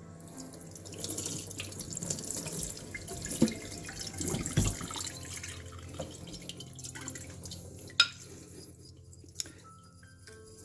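Shapton 8K whetstone being lapped wet on a coarse DMT diamond plate: gritty, watery scraping strokes, with a sharp knock about eight seconds in and quieter scraping after it.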